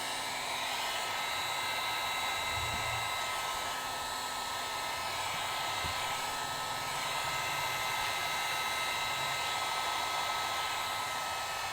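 Hot air gun blowing steadily, with a faint whine from its fan, heating a phone's display panel to soften the adhesive before the cracked screen is pried off.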